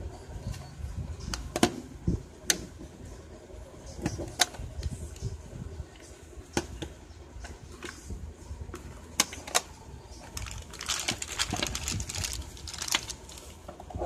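Hard plastic casing of a slim external DVD drive clicking and tapping as it is handled and opened, with a quick run of rattling clicks near the end.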